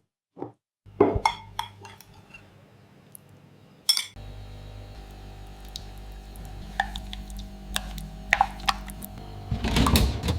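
Kitchen utensils clinking and knocking against pots and dishes in separate strikes. A steady low hum starts about four seconds in, and the clatter grows busier near the end.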